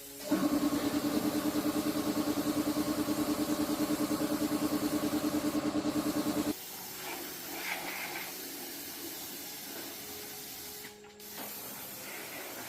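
A machine running with a steady hum and a rapid, even pulse, cutting off suddenly about six seconds in, followed by a faint hiss.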